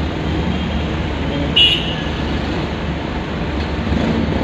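Steady low rumble of a car's engine and tyres heard from inside the moving car, with traffic noise around it. A short high-pitched squeak cuts through about a second and a half in.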